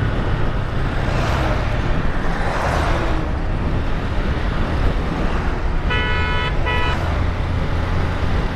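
Steady motorbike engine, road and wind noise while riding, with a swell of traffic noise about one to three seconds in. A vehicle horn, taken to be from the truck tailgating close behind, honks twice: a blast of under a second about six seconds in, then a short toot right after.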